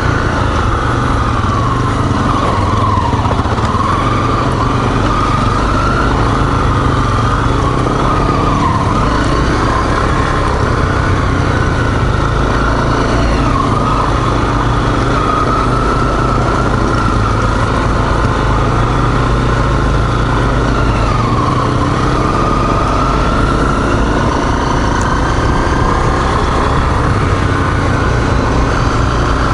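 Single-cylinder four-stroke dual-sport motorcycle engine running while riding, its revs rising and falling steadily with the throttle.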